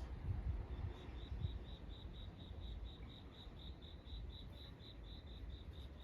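An insect, cricket-like, chirping on one high note in an even rhythm of about four chirps a second, starting about a second in. Under it a steady low rumble with a couple of soft thumps near the start.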